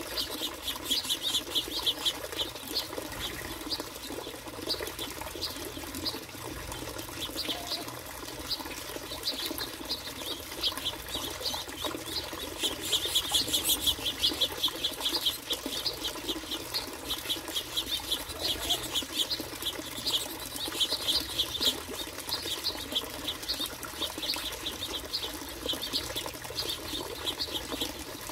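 A group of finches chattering at a feeder: a steady run of many short, high chirps with wing flutters, busiest about halfway through.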